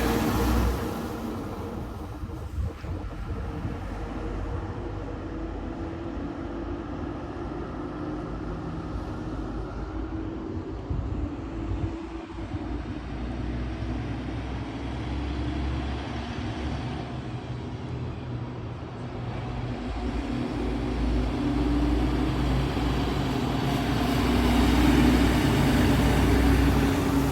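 A motor vehicle's engine running steadily with a low hum, growing louder in the last several seconds.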